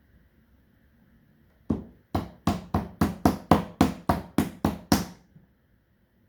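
A hand patting down about a dozen times in quick succession, about three sharp pats a second, pressing a painted handprint onto paper.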